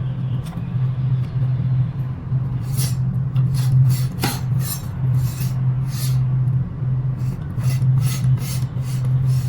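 Scooter disc brake rubbing, a bent brake disc scraping against the caliper in short irregular brushes, over a steady low hum.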